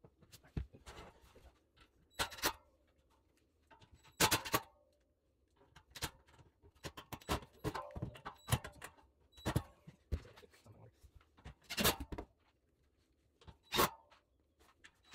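Scattered clicks, knocks and light rattles of tools and hardware being handled while steel X-legs are fastened to an upside-down wooden tabletop, with a few louder, sharper knocks.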